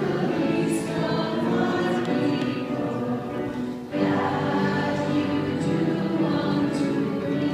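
Choral music: a choir singing long held chords, cutting off briefly about four seconds in and starting again.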